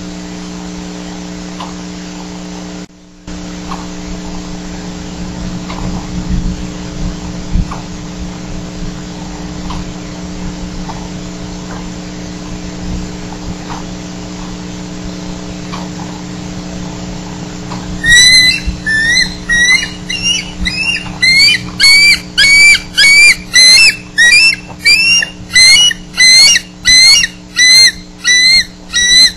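A steady electrical hum from the nest-camera audio feed, cutting out briefly about three seconds in. About two-thirds of the way through, a bald eagle starts a loud, rapid series of high piping calls, about one and a half a second, typical of a nesting eagle alarmed by another eagle nearby.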